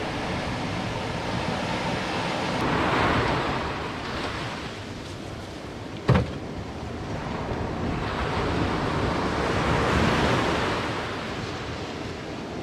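Surf breaking and washing up a sandy beach, swelling twice, about three seconds in and again near ten seconds. A single sharp knock sounds about six seconds in, the loudest moment.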